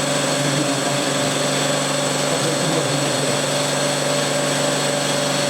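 Log-O-Matic LSS ingot grinding machine running steadily: an even machine noise with a constant hum and a high whine.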